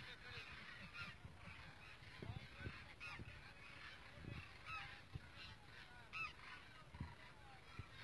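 A large flock of demoiselle cranes calling, many short overlapping croaking calls at once, faint.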